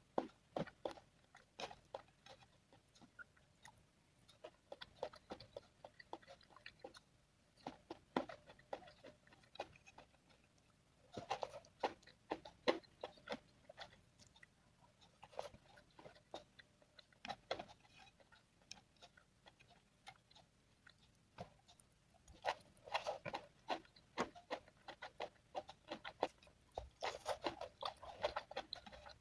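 A person eating: chewing and biting food, with scattered small clicks and crunches and denser bouts of chewing now and then.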